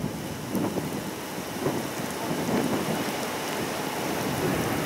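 Heavy rain from a tornadic supercell thunderstorm, a steady hiss with scattered drop ticks, with irregular low rumbling of thunder underneath.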